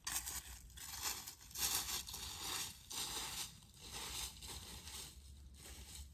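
Footsteps crunching through dry fallen leaves and grass, a steady series of steps that fade as the walker moves away.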